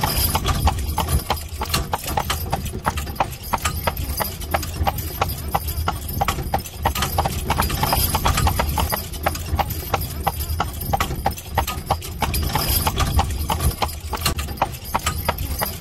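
A carriage horse's hooves clip-clopping in a steady rhythm on a paved road, over a steady low rumble.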